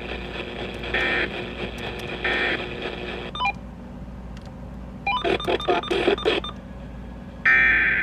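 EAS SAME data bursts received over the radio: three short, buzzy end-of-message bursts about a second apart over radio static. About five seconds in comes a second or so of choppy electronic tones, and near the end the first, longer burst of a new SAME alert header starts.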